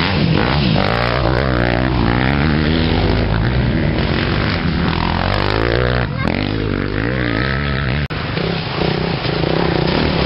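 Several off-road motorcycles revving as they ride through a muddy water crossing, their engines rising and falling in pitch as one bike after another passes.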